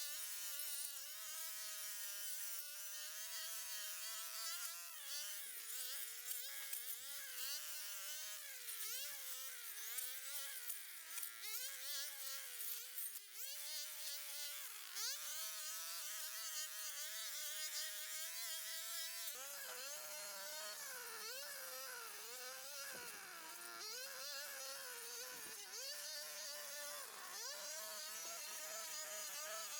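Small high-revving petrol engine of a garden cutting tool, whining steadily with its pitch dipping and recovering every second or two. A deeper hum joins about two-thirds of the way in.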